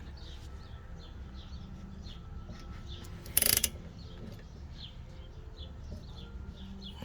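Ratchet wrench turning a rear brake caliper bolt whose slide pin spins along with it: a short burst of ratchet clicking about three and a half seconds in.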